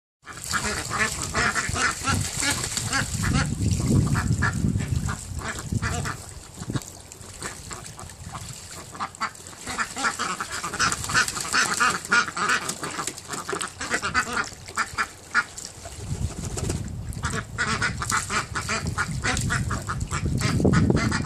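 A flock of Indian Runner ducks quacking over and over in short overlapping calls, with water splashing as they bathe in a shallow plastic pool.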